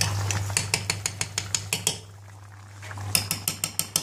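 Spatula clicking and scraping against the frying pan in quick strokes as the curry is stirred, in two short runs with a pause between.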